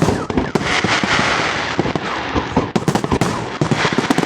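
Fireworks display: many shells bursting in quick, irregular succession, the bangs overlapping a dense crackle.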